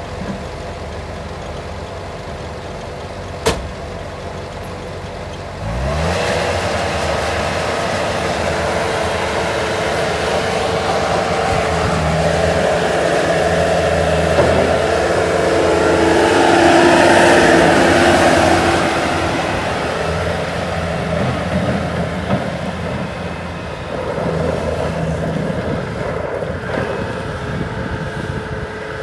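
Bobcat S185 skid steer's diesel engine running at low idle with a sharp click about three and a half seconds in. About six seconds in it is throttled up and runs louder and higher while the machine is put through its functions, loudest about two-thirds of the way through, then easing somewhat.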